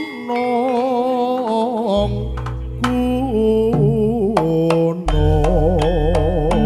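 Javanese gamelan music (gending) played live: a wavering melody line with strong vibrato over struck metallophone notes. A deep low tone comes in about two seconds in and swells again about five seconds in.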